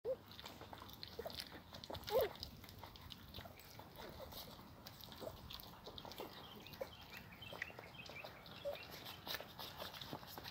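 Puppies eating rice from a clay pot shard: faint scattered chewing and licking clicks, with a few short puppy whimpers, the loudest about two seconds in.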